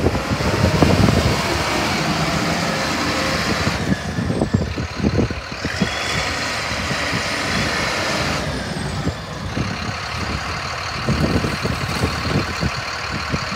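Caterpillar IT28F integrated tool carrier's diesel engine running under throttle as the wheel loader drives and turns on dirt.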